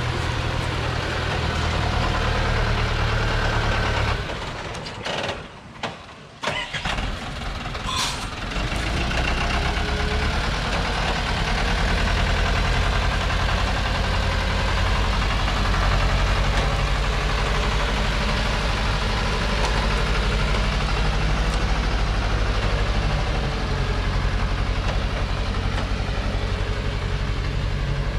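Diesel engine of a heavily loaded Thaco logging truck running under load as it crawls through deep mud. The sound drops away for a few seconds about four seconds in, then comes back with a rising whine and runs steadily again.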